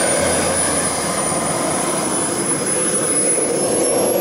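Scale radio-controlled Pilatus PC-21 model's engine running as it taxis, a steady high whine over the propeller's noise.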